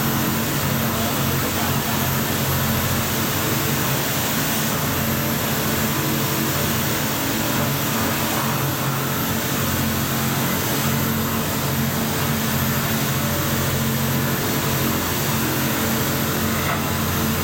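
CNC milling machine cutting SKD61 hot-work tool steel with a POKOLM milling cutter: steady machining noise over a constant low spindle hum.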